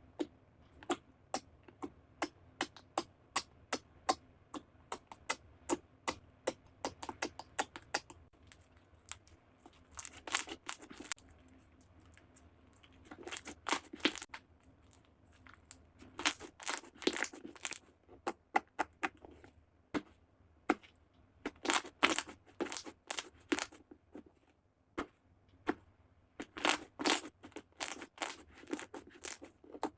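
Slime being squeezed and poked by hand, giving sharp clicking pops about three a second, then bursts of dense crunchy crackling a second or two long every few seconds.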